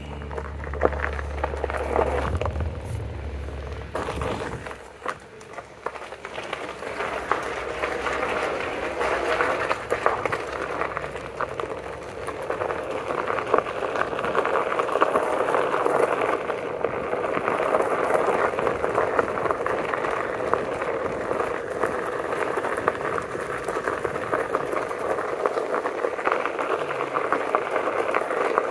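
Onewheel Pint X's tyre rolling over a gravel trail: a steady crunching crackle with scattered small clicks from the stones. A low hum underneath dies away about four seconds in.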